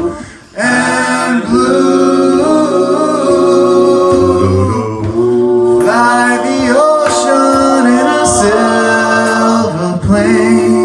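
Male a cappella doo-wop group singing in close harmony, a lead voice over sustained backing chords. The voices drop out for a moment about half a second in, then come back in.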